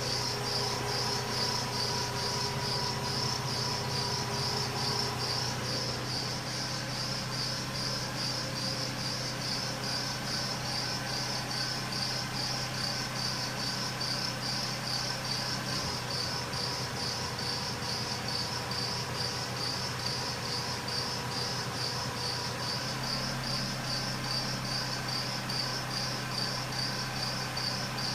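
2001 Lexus RX 300 V6 idling with a steady hum, under a high-pitched squeal that chirps in an even rhythm of a few pulses a second. It is the cold-start squeal that persists after a new harmonic balancer and new serpentine belts were fitted, fading only once the engine warms up.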